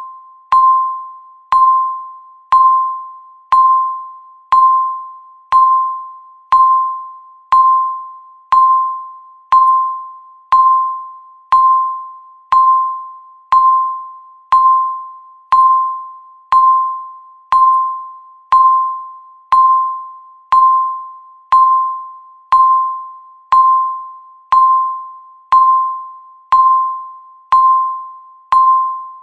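Countdown timer beep sounding once every second: a single mid-pitched electronic tone that starts sharply and dies away before the next, in a steady even rhythm.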